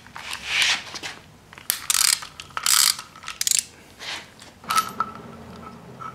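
Ratchet wrench clicking in about six short bursts, stopping about five seconds in, as it loosens the bolt of the timing belt tensioner on a Subaru EJ25 SOHC engine.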